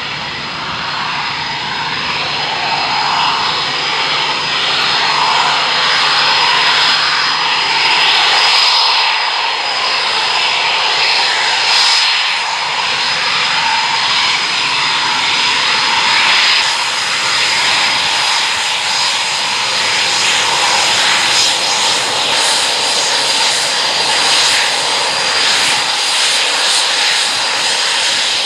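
Twin EJ200 turbofan jet engines of RAF Eurofighter Typhoons running at taxi power: a loud, steady jet rush with a high whistle, growing louder over the first several seconds.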